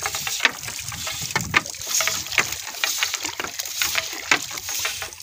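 Water splashing and sloshing around a small fishing boat, with irregular knocks and drips as a fishing net is worked.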